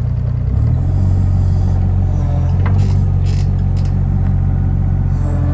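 Kato IHI HD35 V4 mini excavator's small Perkins diesel engine running steadily. Its note rises a step about half a second in, then holds, with a few faint clicks partway through.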